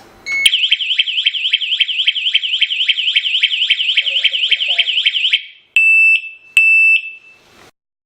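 Wireless security alarm siren sounding a fast warbling tone that rises and falls about four times a second, cutting off after about five seconds, followed by two short steady beeps.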